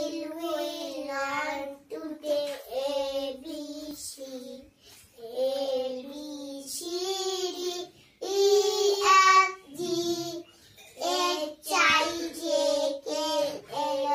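A child singing alone, without accompaniment, in short held-note phrases with brief pauses for breath between them.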